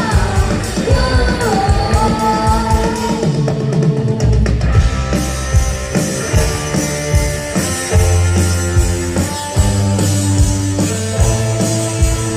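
Live rock band playing a passage of a song on drum kit, bass and guitars. A lead line bends up and down in pitch in the first two seconds, then held chords ring over steady drum hits.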